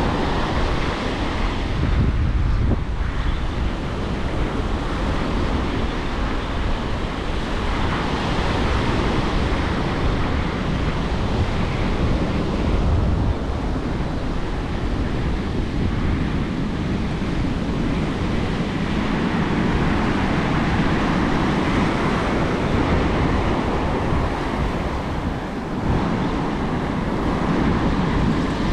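Ocean surf breaking and washing up a sandy beach, swelling and easing in slow surges, with wind buffeting the microphone.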